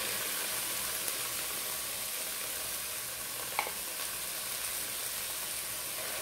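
Raw ground beef sizzling as it is tipped into a hot pot of frying spice paste: a steady frying hiss, with one light knock about three and a half seconds in.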